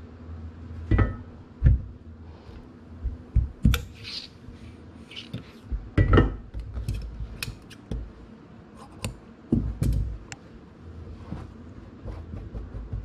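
Hands handling fabric pieces and fusible interfacing strips on a worktable: light rustling with scattered knocks and taps, the loudest about a second in, near six seconds and near ten seconds.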